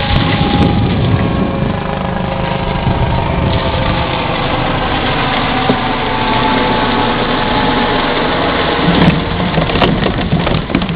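Steady mechanical drone like a running motor, with a couple of sharp clicks near the end.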